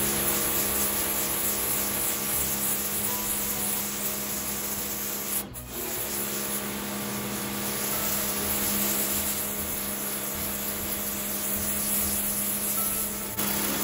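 Bosch Aquatak 125 electric pressure washer running, its pump motor humming steadily under the hiss of a narrow straight-line high-pressure jet striking a textured mat. The sound breaks off for a moment about five and a half seconds in, then carries on as before.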